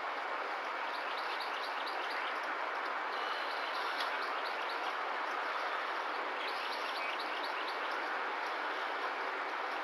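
Runs of short, high chirps, five or six quick ones at a time, repeating about every three seconds over a steady hiss.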